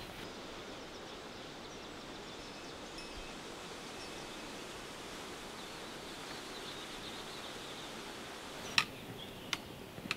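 Steady outdoor ambience: an even rushing noise with a few faint, high chirps, and two sharp taps near the end.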